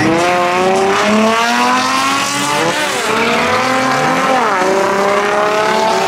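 A car's engine accelerating hard through the gears: its pitch climbs steadily and drops sharply at two upshifts, about three and four and a half seconds in.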